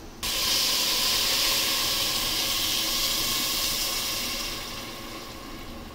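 Water poured into a hot pressure-cooker pot of rice fried in ghee, setting off a sizzle and hiss of steam that starts suddenly, holds steady for about four seconds, then fades.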